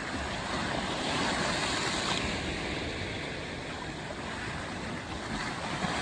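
Rough sea surf breaking and washing up the beach: a continuous rush of water that swells a little about a second in.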